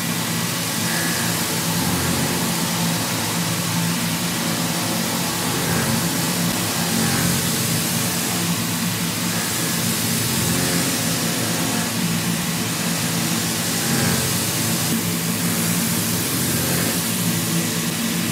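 CNC milling machine with a ball-nose cutter semi-finishing a steel block: a steady machine hum under an even cutting hiss, swelling slightly every few seconds.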